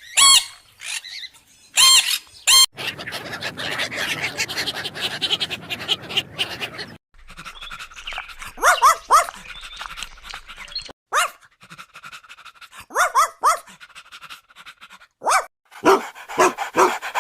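Dog barking in short sharp bursts, in several separate clips cut one after another, with a stretch of steady noise between the early and later barks.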